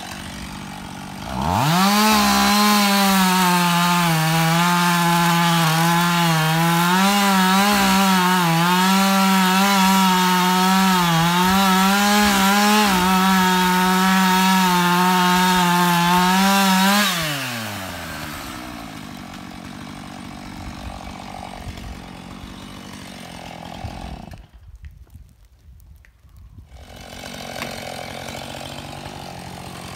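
Husqvarna two-stroke chainsaw revved to full throttle and cutting into the trunk of a large oak for about fifteen seconds, its pitch dipping and recovering as the chain bites into the wood. It then drops back to a low idle, and the sound briefly falls away almost completely about 25 seconds in.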